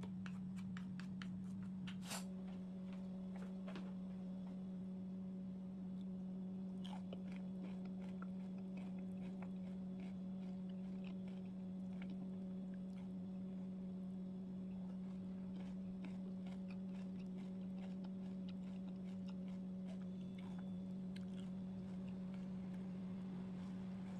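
A steady low hum throughout, with soft clicking and squishing from a wooden spoon stirring dressed shredded cabbage salad in a bowl for the first couple of seconds. A sharp knock comes about two seconds in, followed by scattered faint clicks.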